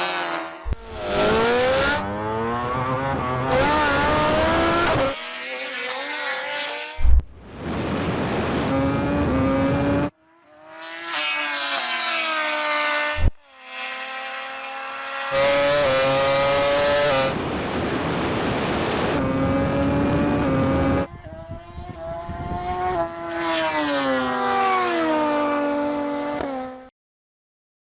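High-revving race vehicles accelerating flat out from a standing start in a drag race, each run's pitch climbing and dropping back at every gear shift. The runs come in short segments cut abruptly one after another, with a brief sharp bang about 7 seconds in and again about 13 seconds in.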